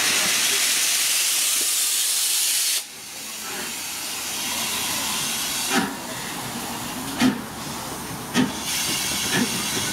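Loud hiss of steam escaping around the front end of the LMS Princess Coronation class 4-6-2 steam locomotive 6233 Duchess of Sutherland. It cuts off suddenly about three seconds in and gives way to a softer, slowly building hiss, with a few short sharp sounds over it.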